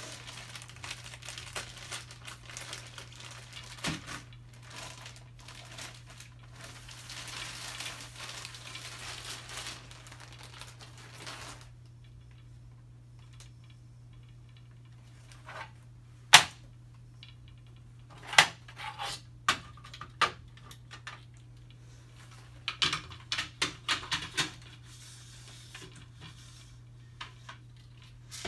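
Plastic wrap crinkling and rustling as it is pulled off a roll of printer paper. About twelve seconds in it goes quieter, broken by sharp knocks and a quick run of clicks as a printer roll holder and its end flange are fitted and pushed snug into the paper roll's core.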